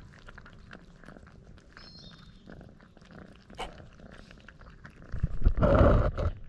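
Stray tabby cats chewing and smacking on chunks of wet cat food, with many small wet clicks. Near the end there is a loud, rough burst about a second long from a cat pressed right against the microphone.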